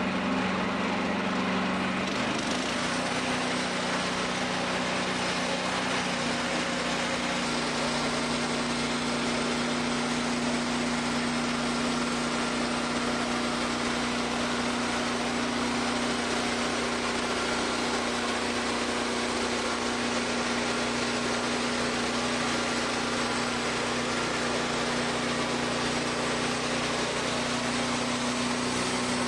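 Wood-Mizer band sawmill cutting through a cherry log. The engine runs steadily under load while the band blade hisses through the wood. The cut starts about two seconds in and carries on without a break.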